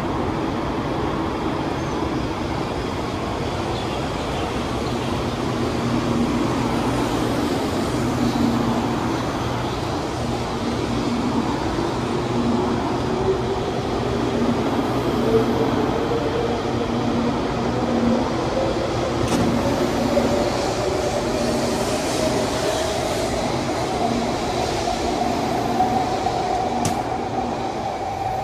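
Taiwan High Speed Rail 700T train pulling out of the platform and gathering speed. A steady running rumble carries an electric traction-motor whine that climbs in pitch through the second half as the train accelerates, with a couple of sharp clicks near the end.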